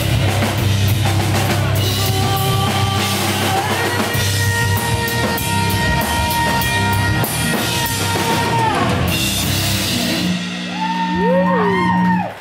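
Live rock band playing: electric guitar, bass guitar and a full drum kit with cymbals. About ten seconds in the drums stop and a held chord rings on with sliding notes over it, closing the song.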